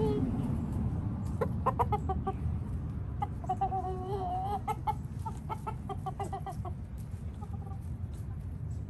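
Chickens clucking: a few short calls about a second and a half in, a longer wavering call around the middle, then a quick run of short clucks.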